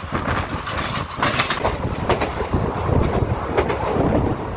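Passenger train coaches running at speed, heard from an open doorway: a steady rumble of wheels on the rails with a few irregular clacks.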